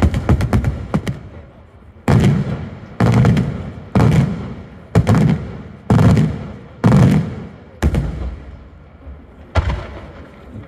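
Daytime firework shells bursting overhead. A rapid run of crackling reports dies away in the first second, then seven loud bangs come about a second apart, each trailing off in a low rolling rumble, with one more bang near the end.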